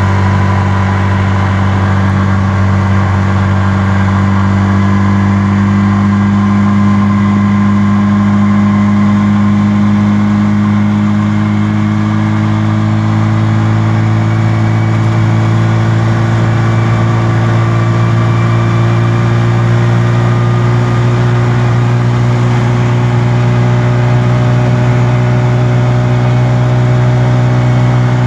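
Bajaj RE 205 three-wheeler's engine running hard under full throttle, heard from inside the cab as the rickshaw accelerates toward its top speed. It is a loud, steady drone whose pitch rises slowly as the speed climbs from about 55 to 80 km/h.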